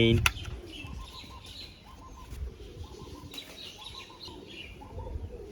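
Faint birds calling in the background, short repeated chirps.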